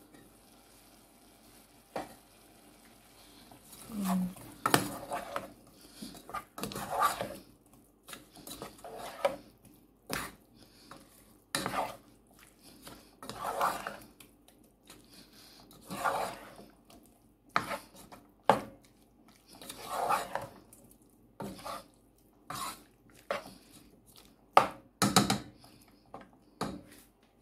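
A cooking spoon stirs and scrapes chicken pieces around a metal saucepan in repeated strokes about every two seconds, with a few sharp knocks of the utensil against the pan.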